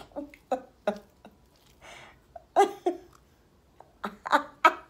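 Short, scattered vocal sounds from two people: brief grunts, breaths and clipped exclamations rather than sentences, with gaps between them.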